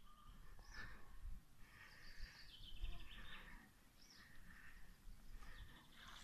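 Faint birdsong outdoors: scattered short chirps and a brief trill, over a low rumble.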